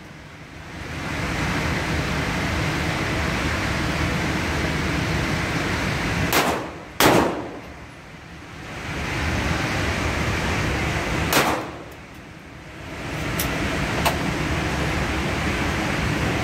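Three gunshots in an indoor firing range: two about half a second apart around six seconds in, and a third near eleven seconds, with two faint sharp ticks a couple of seconds later. A steady rushing background noise drops away after each shot and swells back over the next second or two.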